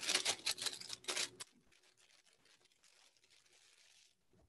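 Plastic bag crinkling and rustling as dry fudge brownie mix is shaken out of it into a glass bowl, in a few quick bursts over about a second and a half, then near silence.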